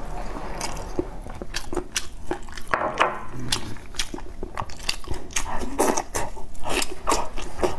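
Close-up eating sounds of braised meat on the bone being pulled apart, bitten into and chewed. Many short, wet clicks and smacks follow one another throughout.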